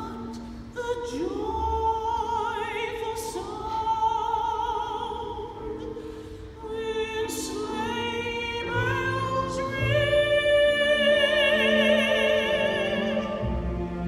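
Operatic soprano singing long held notes with wide vibrato over string orchestra accompaniment, the voice growing louder on a sustained phrase near the end.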